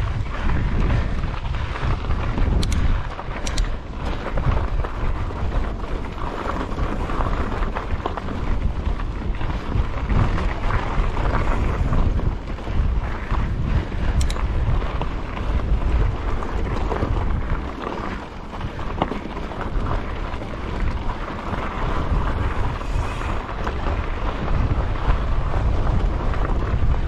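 Wind buffeting the microphone and mountain bike tyres rolling over a rocky dirt trail as the bike is ridden, with a few sharp clicks of the bike rattling over rock.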